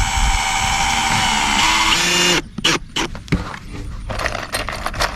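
Power drill driving an exterior deck screw, running steadily for about two and a half seconds with its whine dropping slightly in pitch before it stops abruptly. This is followed by a series of short, sharp knocks and scrapes.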